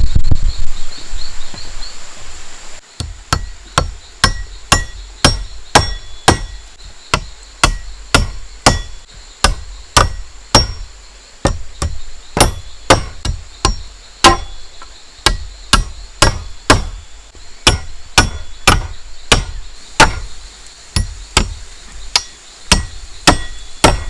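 A hand tool striking repeatedly and evenly, about two blows a second, each with a brief ringing tone, beginning about three seconds in. Before the strikes there is a rushing noise with an insect trilling.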